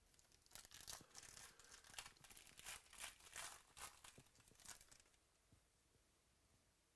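Trading-card pack wrapper being torn open and crinkled: a run of short, faint rustles over about four seconds, then stopping.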